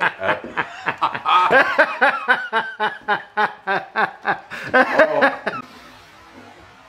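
A man laughing hard in quick repeated bursts, a few a second, the laughter of someone who has just pulled off a scare; it breaks off about five and a half seconds in.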